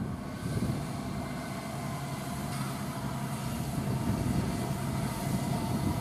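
Deutz-Fahr Agrotron 7250 TTV tractor's six-cylinder diesel engine running steadily under load while pulling a five-furrow Kverneland ES-85 mounted plough through the soil.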